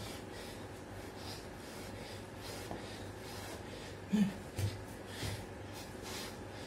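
A man breathing hard through his nose and mouth in quick, rhythmic breaths while doing push-ups, with one short low sound about four seconds in.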